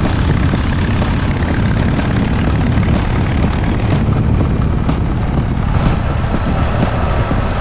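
Harley-Davidson V-twin motorcycle running steadily under way, a low rumble with wind buffeting the microphone.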